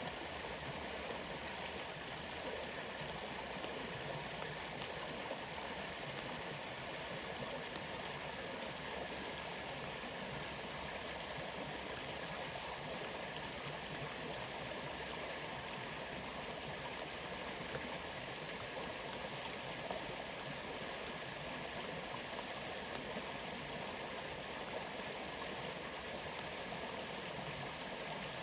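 Waterfall water rushing steadily, an even wash of sound.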